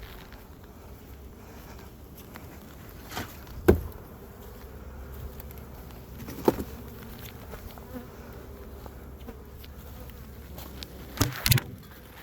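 Honey bees buzzing steadily around a newly installed hive, a continuous hum. A few sharp knocks cut through it, the loudest a close pair near the end.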